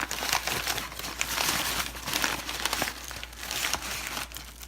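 Packing paper crinkling and rustling in irregular bursts as it is handled and unwrapped from a package.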